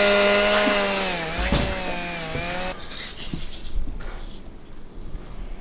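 Chainsaw engine held at high revs, dipping briefly once, then cutting off abruptly a little under halfway through; faint clicks and shuffling follow.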